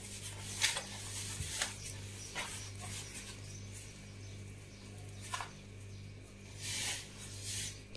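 Hands rubbing and squeezing damp semolina and flour in a wooden bowl: soft, irregular rustling strokes as warm water is gathered into the dough with the fingers. A steady low hum runs underneath.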